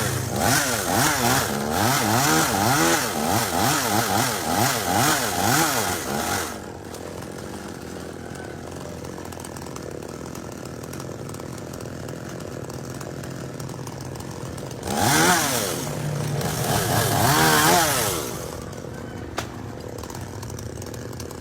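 Petrol chainsaw engine revving up and down repeatedly for about six seconds, then dropping back to a steady idle. Two more revs come about fifteen seconds in, and it settles back to idle.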